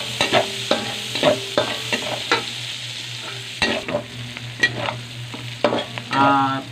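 Sliced onions sizzling in hot oil in a wok, stirred with a metal spatula that scrapes and clacks against the pan in irregular strokes.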